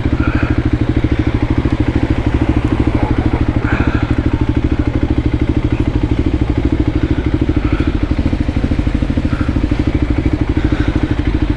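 Single-cylinder engine of a Voge 300 Rally motorcycle idling steadily, with an even, fast pulsing beat.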